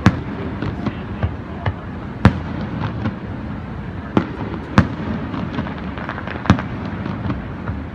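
Aerial firework shells bursting: a series of sharp bangs, the loudest coming every second or two, with fainter pops between.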